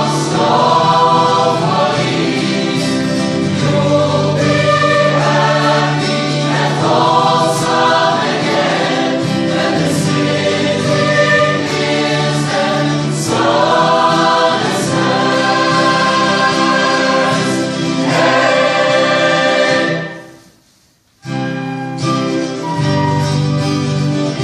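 Music: a choir singing over a steady low sustained note. The music dies away briefly near the end, then starts again.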